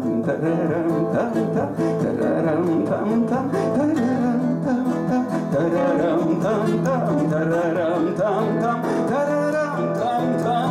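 Two acoustic guitars play an instrumental break in a bard song: one strums steady chords while the other plays a lead melody with wavering, bent notes.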